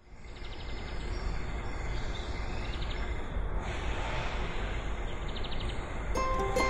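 Outdoor countryside ambience: a steady rushing noise with a low rumble, broken a few times by short, high trilling chirps. Plucked-string music starts near the end.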